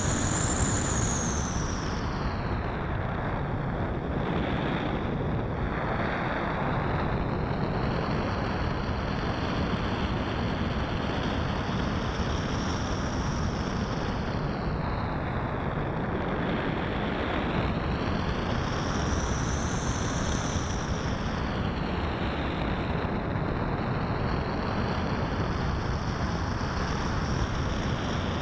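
Steady wind rushing over a camera mounted on a Great Planes Fling 2M radio-control sailplane, converted to electric, in flight. A high whine rides on top, rising in pitch near the start and again about two-thirds of the way in, then falling back each time.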